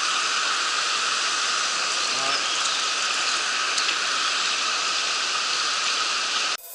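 Mountain stream water rushing steadily over rocks, a constant hiss of running water that cuts off abruptly near the end.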